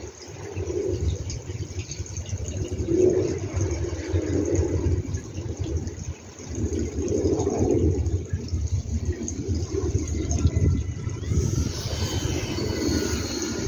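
Wind buffeting the microphone: an uneven low rumble that swells and dips. Near the end a fainter high whine, falling in pitch, comes in from the electric motor and propeller of an RC foam plane flying past.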